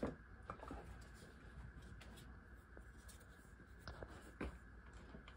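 Faint handling of a hard plastic OtterBox Echo Show stand and the device: a sharp knock at the start, a few light ticks just after, and two more plastic knocks about four seconds in, with soft rubbing between.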